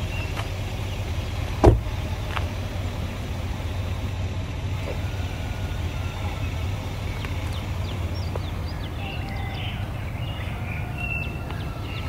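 A pickup truck's door slammed shut once, a sharp loud thud a little under two seconds in, over a steady low hum.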